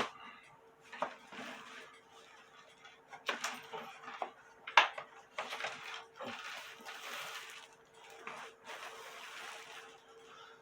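Handling noise from working on a wooden cuckoo clock: scattered sharp knocks and clicks, with two longer stretches of rustling in the second half, over a faint steady hum.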